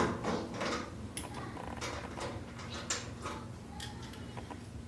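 Light metallic clicks and scrapes of a nut driver and wire ring terminals being worked onto a dryer's power-cord terminal block, scattered irregularly, with a sharper click at the start and another about three seconds in.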